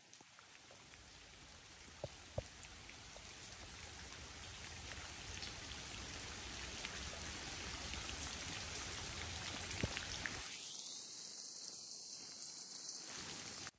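Light rain falling on leaves and a wet road: a steady hiss that slowly grows louder, with a few single drops ticking close by. For a couple of seconds near the end the rain sounds thinner and duller.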